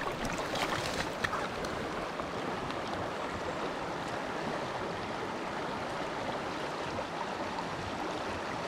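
Shallow stream water running steadily over rocks, with a few brief sharp sounds about a second in.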